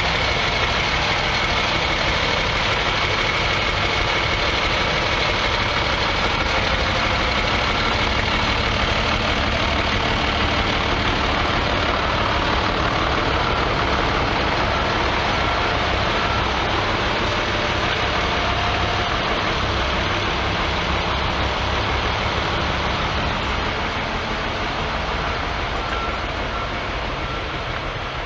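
Vintage farm tractor engines idling steadily, easing off a little near the end.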